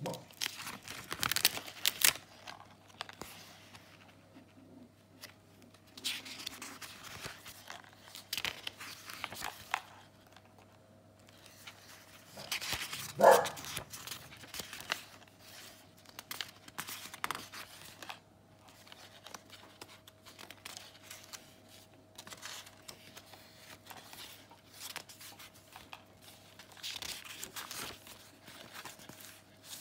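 Thick paper and card pages of a handmade junk journal being turned and handled, rustling and flapping in short, irregular spells. One short, much louder sound stands out about halfway through.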